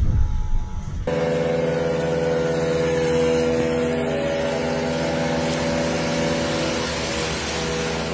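After a low rumble, a car engine comes in abruptly about a second in, running at a steady pitch under a constant hiss of floodwater and rain.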